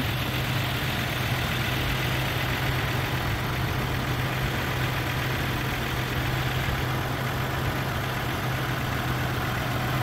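Car engine idling steadily under the open hood, an even low hum that does not change.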